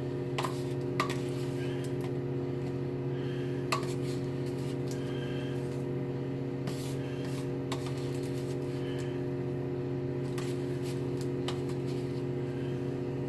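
Microwave oven running with a steady hum, with a few scattered light clicks and rustles of food trays being handled.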